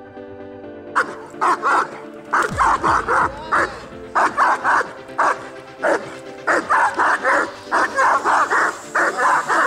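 Young German Shepherd barking hard and fast, in quick runs of two to four barks, while lunging on a line at a protection-training helper: aggressive guard barking in protection work. The barking starts about a second in.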